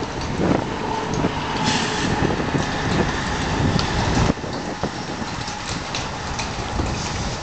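Storm wind and road traffic by the highway make a steady rushing noise, which drops suddenly about four seconds in. After the drop come light ticks of rain starting to fall.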